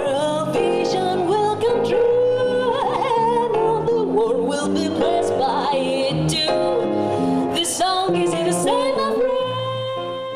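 Female jazz vocalist singing with vibrato on held notes, accompanied by grand piano and electric bass.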